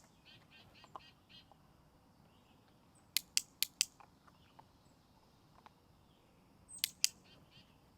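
Dog-training clicker clicking: four sharp clicks in quick succession about three seconds in, then a pair of clicks near the end.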